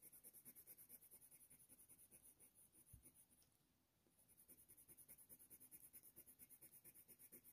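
Faint, quick strokes of a Faber-Castell Polychromos ivory colour pencil on hot-press watercolour paper, about six strokes a second, with a short pause near the middle. A single soft low knock comes about three seconds in.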